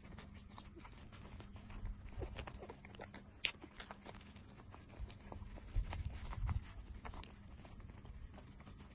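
Young puppies suckling at their mother's teats: quick wet clicks and smacks, with a few low bumps, the loudest a little after halfway.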